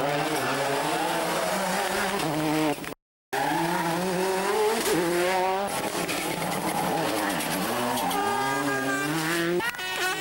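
Turbocharged four-cylinder World Rally Car engines at full throttle on a stage, the pitch climbing and dropping back in quick steps through the gear changes. There is a sudden cut to silence about three seconds in, then another pass, with a high squeal near the end.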